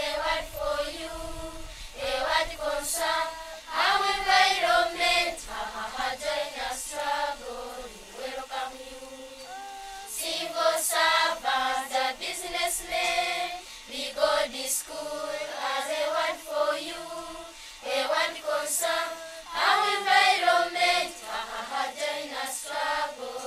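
A group of Ugandan schoolchildren singing a song together in chorus.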